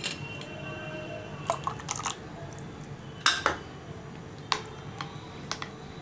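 Metal spoon stirring thick tomato soup in a bowl, clinking against the bowl's sides several times at uneven intervals, with the sharpest clink a little over three seconds in.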